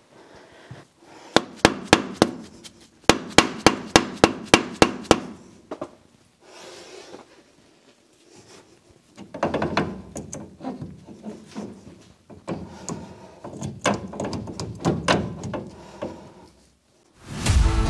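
Two quick runs of sharp metal knocks, about four a second, then scraping and clunking as a Chevrolet K10 front axle shaft is worked through the tight steering knuckle, trying to get it to spline into the differential. Music comes in near the end.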